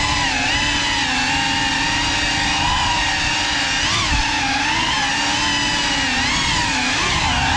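GEPRC CineLog35 3.5-inch ducted FPV cinewhoop's motors and propellers whining steadily, the pitch wavering up and down with the throttle and rising briefly about four seconds in and again near the end.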